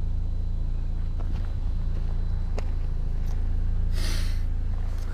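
Ford Transit Connect van's engine idling steadily, heard as a constant low hum from close behind the vehicle. A couple of light clicks and a short hiss about four seconds in sit over it.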